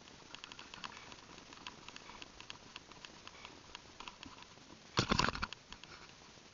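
A paintball player on the move through dry leaf litter: scattered sharp clicks and ticks, then a loud clatter lasting about half a second, about five seconds in.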